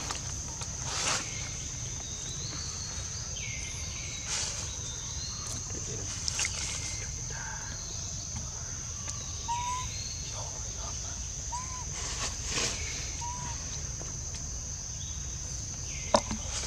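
Tropical forest ambience: a steady high-pitched insect drone, with a bird calling over and over every two to three seconds and a few short higher chirps. Now and then a sharp click or rustle, as of dry leaves being handled.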